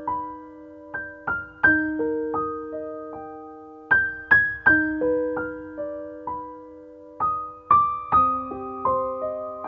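Background piano music: a slow melody of single struck notes and chords, each left to ring and fade.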